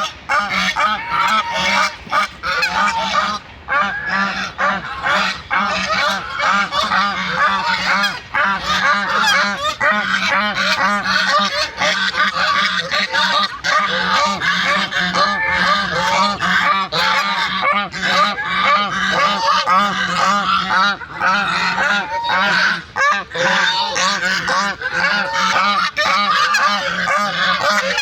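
A flock of waterfowl calling, a dense and unbroken chorus of many overlapping calls, with a low steady hum underneath.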